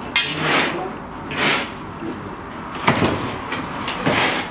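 Long metal rods scraping inside a clay tandoor oven as baked Samarkand loaves are pried off its wall, a rasping scrape about once a second with a sharp knock against the oven about three seconds in.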